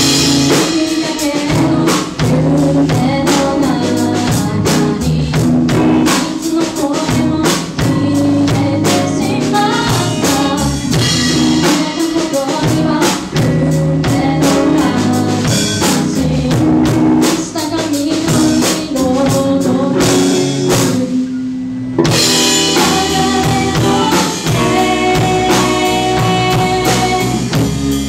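Live band playing a song: a woman singing with electric guitar, electric bass and drum kit. The band briefly thins out, the drum hits gone, about three-quarters of the way through, then comes back in full.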